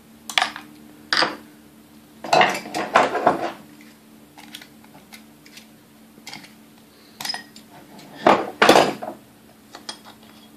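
Metal hand tools and parts clinking and clattering against a vintage Sunbeam Mixmaster's painted metal motor housing and the workbench as it is taken apart. There are two sharp clinks in the first second or so, a burst of clatter around two to three seconds in, light ticks, then another burst near the end.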